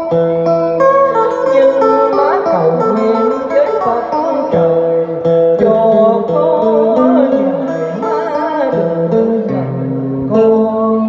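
Guitar playing a slow cải lương melody, plucked note by note with sliding, bent pitches.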